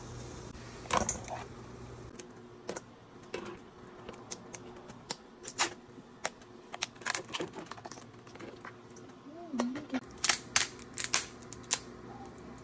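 Cooked Dungeness crab shells being cracked and pried apart by hand, a run of irregular sharp cracks and clicks. A steady low hum runs for the first two seconds, then stops.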